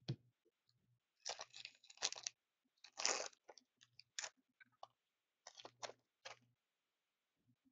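Hockey card pack wrapper crinkling and tearing as it is opened by hand, in several short crackly bursts over about five seconds, loudest about three seconds in. A short tap comes just before, at the very start.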